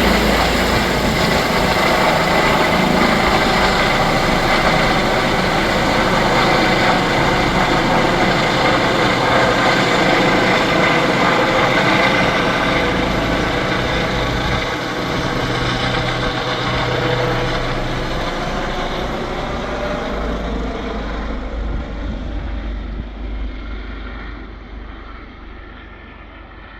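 Rescue helicopter's turbine engines and rotor running loudly and steadily, then fading away over the last several seconds as the highest sounds drop out first, as it flies off after take-off.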